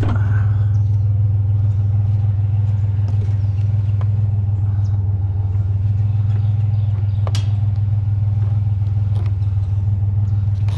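Vehicle engine running, a loud steady low drone, with a few sharp clicks or rattles over it.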